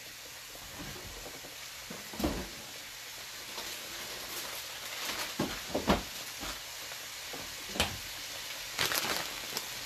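Raw ground beef sizzling steadily in a hot frying pan, with a few short sharp clicks scattered through.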